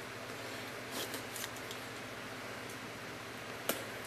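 A cardboard shipping box being handled and worked at with a box cutter: a few soft scrapes and rustles about a second in, and a single sharp click near the end.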